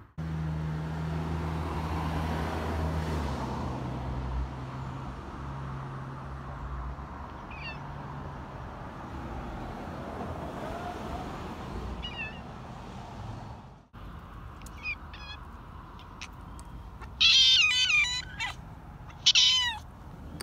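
Black cat meowing twice near the end, loud and close, after a few short faint chirps. Earlier a steady low hum of outdoor background runs underneath.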